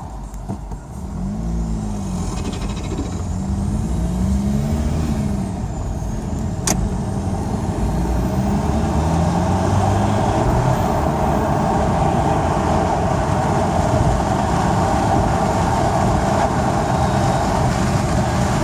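Lexus IS220d's 2.2-litre four-cylinder turbodiesel, fitted with a modified prototype intake, giving induction noise as the revs rise and fall several times, then running louder and steadier. There is a single sharp click about seven seconds in.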